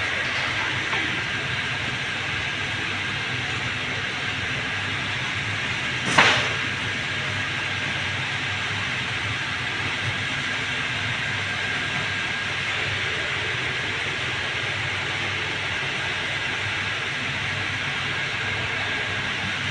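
Steady mechanical running noise with a constant high whine, and a single sharp clack about six seconds in.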